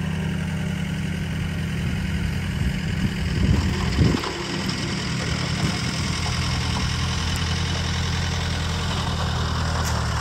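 Pickup truck engine idling steadily, with a brief louder disturbance about three to four seconds in.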